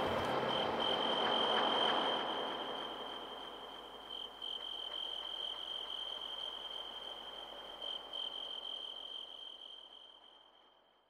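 A steady, high cricket-like trill over a soft hiss, dipping briefly a few times and fading out near the end.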